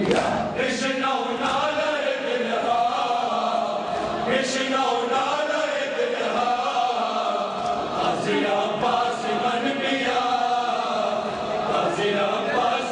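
A crowd of men chanting a Muharram noha (mourning lament) together, many voices in unison.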